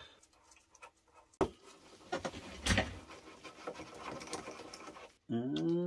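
Scattered clicks, knocks and light metallic rattles of hand-tool work on a motorcycle's front brake caliper. Near the end a steady pitched hum starts suddenly, slides up in pitch as it begins and holds for about a second.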